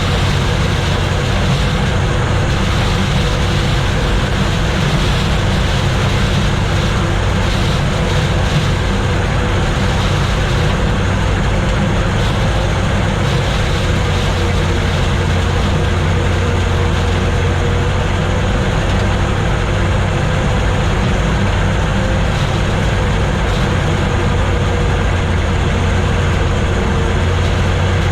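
Gleaner combine running steadily while shelling corn: a continuous engine drone with the even noise of the machinery, unchanging throughout.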